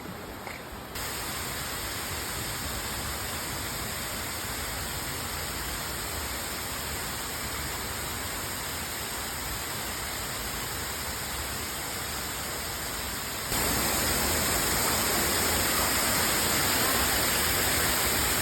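Waterfall water rushing in a steady roar of noise, stepping up suddenly about a second in and becoming louder again about thirteen seconds in.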